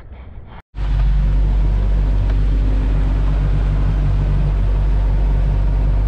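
Boat under way on a small outboard motor: a steady engine drone mixed with wind and water rush, starting abruptly after a brief silence about half a second in.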